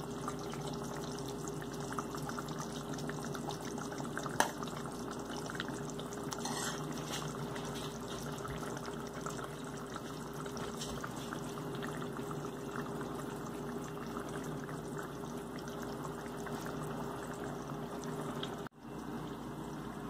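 Chicken curry simmering in a pot on the stove, a steady bubbling hiss under a low, even hum, with one sharp click about four seconds in.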